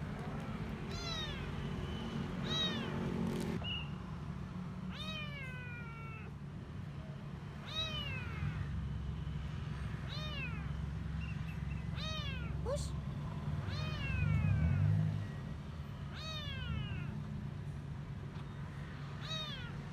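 A small stray kitten meowing over and over, crying for food: high calls that fall in pitch, about one every two to three seconds. A low steady hum runs underneath.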